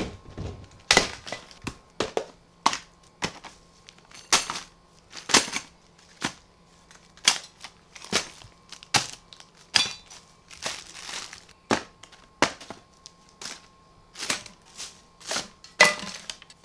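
Plastic bags and packaging crinkling and rustling as a hand sorts through a pile of bought parts and aerosol spray cans, with irregular sharp crackles and knocks, about one or two a second.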